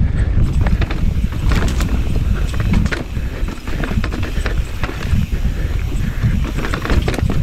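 Transition Relay mountain bike ridden fast downhill without its battery: tyres rumbling over dirt and rock with frequent sharp clicks and rattles from the bike, over heavy wind rumble on the microphone.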